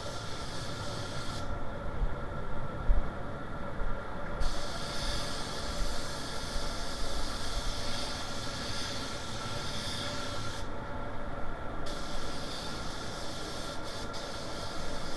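Siphon-feed spray gun hissing as it sprays paint. The air cuts off twice when the trigger is let go: about a second and a half in for three seconds, and again for about a second near eleven seconds. A steady hum runs underneath.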